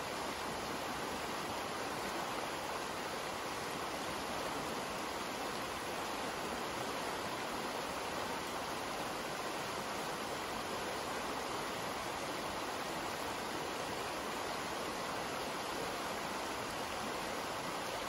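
Barton Creek running shallow and fast over rocks: a steady, even rush of flowing water, the creek running full after a week of rain.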